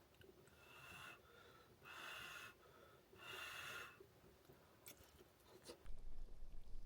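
A person blowing on hot hotpot food to cool it, three short breathy puffs about a second apart, with a few faint clicks of utensils.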